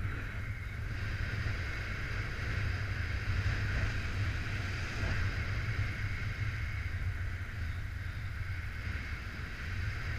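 Wind rushing over the microphone of a camera on a paraglider in flight: a steady low rumble with an even hiss above it.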